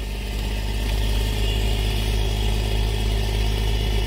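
12-valve Cummins diesel engine running steadily just after starting, once its fuel system had been primed by cracking the fuel bowl.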